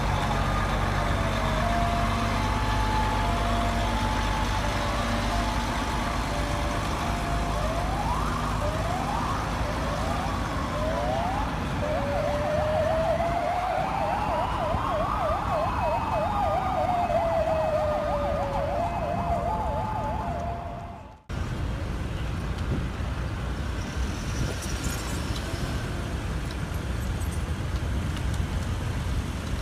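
Several escort sirens sounding at once, switching between slow rising and falling wails, fast yelps and warbles, over the low running of a heavy truck's diesel engine. About two-thirds of the way in they stop abruptly, leaving steady engine noise from the escort vehicles.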